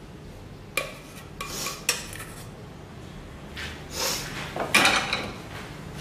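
A spoon clinking and scraping against a ceramic plate as salad is moved around on it. There are two sharp clinks in the first two seconds, then longer scrapes in the second half, loudest about five seconds in.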